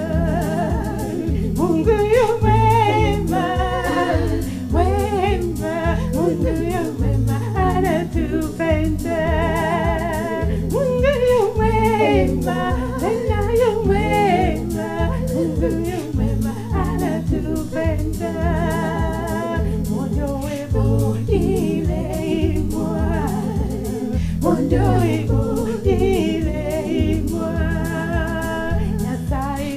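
A woman singing a gospel song over a backing track with a steady bass and drum beat.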